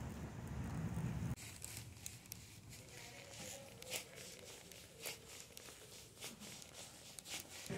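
Wind rumbling on the microphone until a sudden cut about a second in. Then footsteps on a hard stone-tile floor, a sharp click every half second or so, with a bag rustling.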